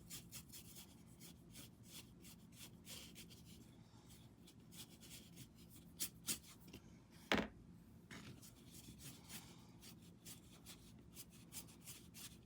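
Paintbrush strokes rubbing gray wash over a painted surface, a quiet run of quick back-and-forth swishes. Two light ticks come about six seconds in, and a sharp knock, the loudest sound, a little after seven seconds.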